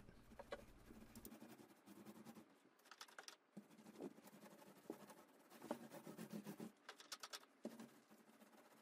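Faint, crackly ticking of a paint roller spreading wet paint across a wall, coming in irregular runs of small clicks.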